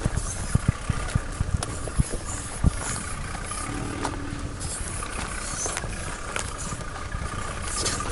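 Nissan Patrol 4WD engine running at low revs as the vehicle crawls up a rutted dirt track, with several low thumps in the first few seconds.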